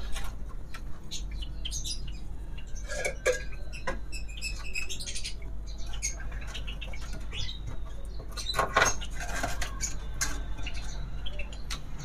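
Clicks, knocks and rattles of the metal latch and hinges on a wooden breeding-cage door, with clatters near 3 s and 9 s as a clay pot nest box is handled and lifted out of the cage.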